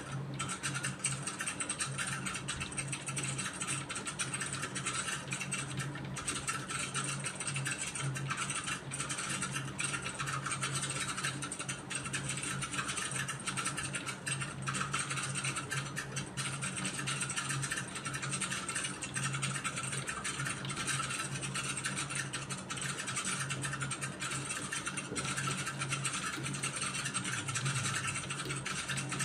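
Computer keyboard keys clattering in continuous fast typing, a dense irregular run of key clicks over a steady low hum.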